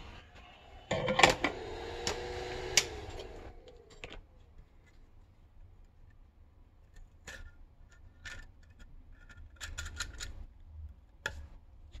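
A loud clatter of clicks with a brief humming tone between about one and three and a half seconds in, then scattered light clicks and taps as the phone and its metal frame are handled on the bench.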